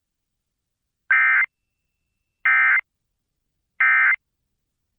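Emergency Alert System end-of-message signal: three identical short, shrill warbling bursts of SAME digital data tones, evenly spaced just over a second apart, marking the end of the alert broadcast.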